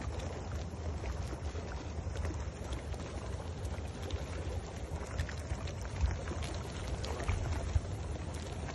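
Wind rumbling on a phone's microphone over the steady rush of water, with two brief knocks, one about six seconds in and one near the end.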